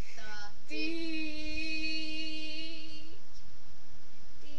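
A girl's voice singing one long steady note for about two and a half seconds, after a few short squeaky rising sounds. Another held note starts near the end.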